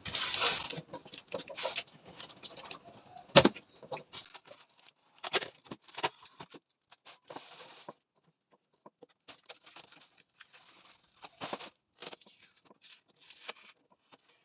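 Cardboard packing pieces being handled and pulled off a boxed toy: scattered rustles, scrapes and taps, with one sharp knock about three and a half seconds in and a short lull around the middle.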